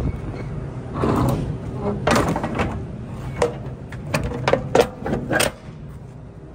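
Sharp metallic clicks and knocks from the latch hardware of a semi-trailer's rear doors, bunched in the middle and latter part, over a steady low hum of an idling truck.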